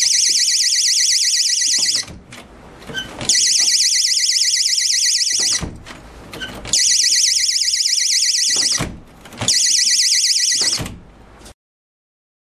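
Wireless magnetic door/window alarm sounding a loud, high-pitched warbling siren in four bursts, silenced in between, as the alarm's two pieces are pulled apart and brought back together. Faint knocks sound in the gaps between bursts.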